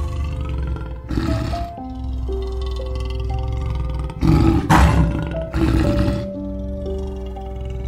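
A lion roaring in three short, low bursts over background music of sustained keyboard notes.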